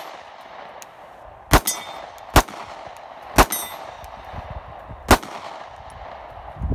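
Four shots from a Sig P365 9mm compact pistol at an uneven pace, each trailing off in an echo. The pistol cycles on every shot even with the shooter's thumbs pressed hard against the slide.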